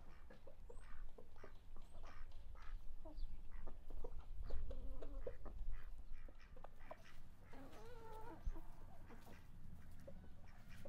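Farmyard ducks quacking and chickens clucking in short scattered calls, with a longer wavering call about eight seconds in, over soft scattered taps.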